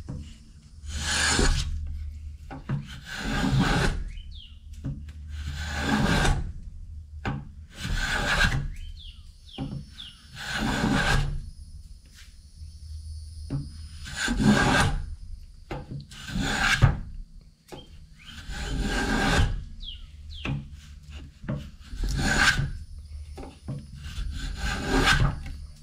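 Steel block plane shaving a wooden bo staff, cutting a taper on its end in repeated hand strokes: about ten rasping swishes of the blade through the wood, each about a second long and two to three seconds apart.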